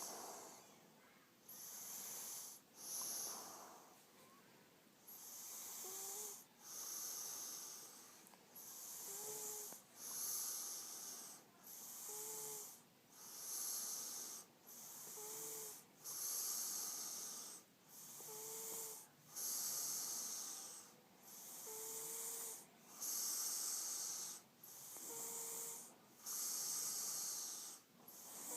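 A man snoring in his sleep: slow, hissing breaths in and out, one cycle about every three seconds. Most cycles end in a brief whistling note.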